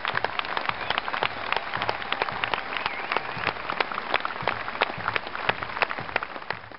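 Large audience applauding, a dense, steady patter of many hands clapping.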